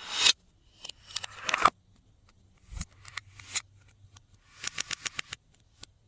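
Glossy slime being squished and stretched by hand, making sticky crackling sounds. Twice in the first two seconds a crackle swells and stops sharply, and near the end comes a quick run of clicking pops.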